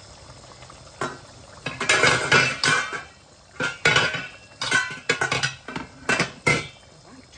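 Stainless steel cookware clinking and clattering: several clusters of metal knocks and rattles, some ringing briefly, that stop shortly before the end.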